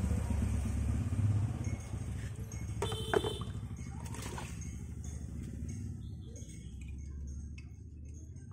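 Soapy sponge scrubbing a ceramic teapot, with water dripping and trickling into a basin and a sharp clink of the pot about three seconds in. Beneath it runs a low rumble that slowly fades.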